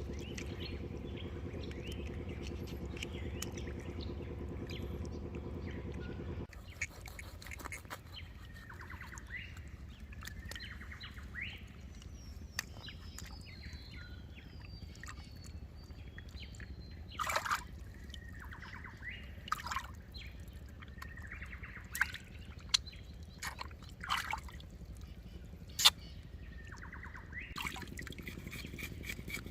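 Birds calling with repeated short chirps and a few falling whistles, among scattered sharp clicks and knocks. A steady low hum cuts off suddenly about six seconds in.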